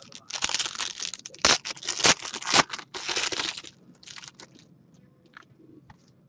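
Foil trading card pack crinkling and tearing as it is ripped open by hand for about three seconds, followed by a few faint clicks of the cards being handled.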